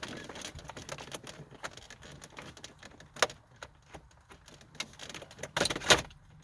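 Plastic clicks and knocks as a 1994 Mitsubishi Eclipse's dash gauge cluster is worked back into the dashboard and onto its plug, with a sharp knock about three seconds in and a loud run of knocks near the end as it presses home.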